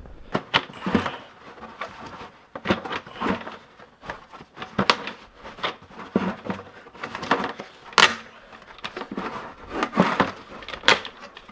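Plastic lid being pried off a 5-gallon plastic bucket by gloved hands: a run of irregular sharp snaps and cracks as the lid's tabs give way, the loudest about 8 seconds in.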